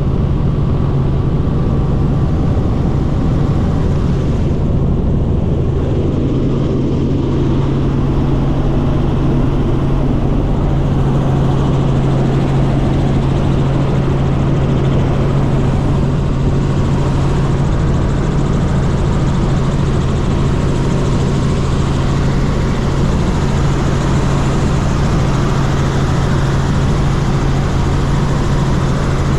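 Light helicopter in flight: the steady, unbroken drone of engine and rotors with a strong low hum.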